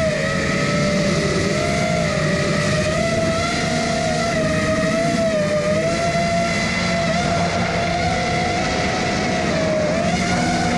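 FPV quadcopter's motors and propellers whining steadily in flight, the pitch wavering slightly up and down with the throttle.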